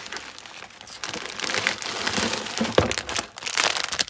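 Clear plastic packaging and tissue paper crinkling as a plastic-wrapped pack of precut fabric squares is pulled out of a box. The crinkling builds about a second in, with a few sharper crackles near three seconds in.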